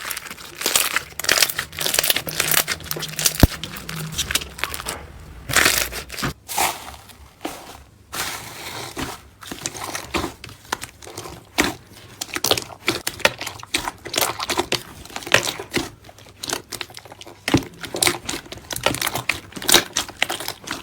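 Slime being squeezed and poked by hand, giving dense, irregular crackling and popping with crinkly squelches throughout.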